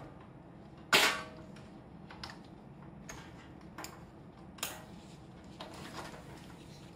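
A few separate clicks and taps of hard plastic and metal parts being handled inside an open desktop PC case. The loudest is a sharp click with a brief ring about a second in; the others are fainter.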